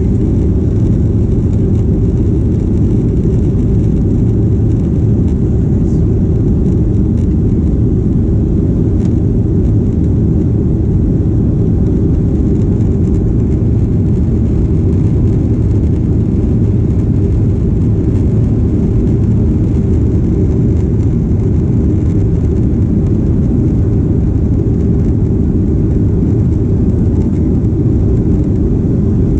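Steady low-pitched noise of a Boeing 737 airliner in flight, heard inside the passenger cabin: jet engine and rushing air blending into one even drone.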